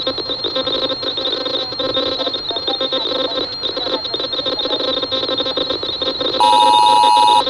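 Radio static crackling and hissing over a distorted emergency transmission, with a thin steady whine on top. About six seconds in, a loud two-tone emergency alert signal sounds for about a second.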